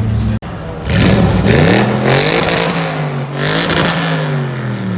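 Straight-piped Audi RS6 C7 twin-turbo V8 exhaust revving hard: after a sudden break about half a second in, the engine note climbs and drops twice, with a loud raspy blare at each peak.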